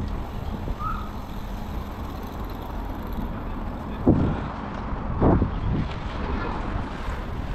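Steady low rumble of wind and road noise on a helmet- or bike-mounted action camera while cycling past traffic. About four seconds in come two short, louder sounds a little over a second apart.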